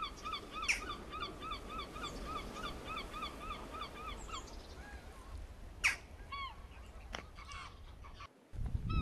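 A goose honking over and over, about three calls a second for the first four seconds, then only a few scattered calls, with wind rumbling on the microphone. A sharp knock comes about six seconds in, and music starts near the end.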